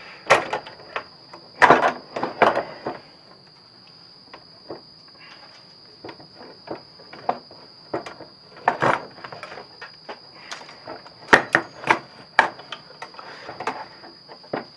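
Steel parts of a 330 conibear body-grip trap and its springs clinking, knocking and scraping on a wooden workbench as they are handled, in irregular sharp clicks with quieter gaps between.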